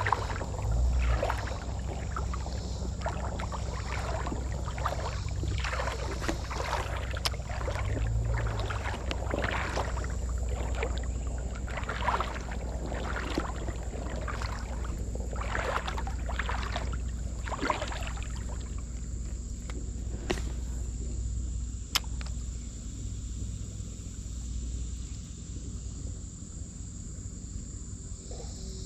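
River water sloshing and splashing in irregular bursts over a steady low rumble. The splashing dies down after about 18 seconds, leaving a sharp click or two.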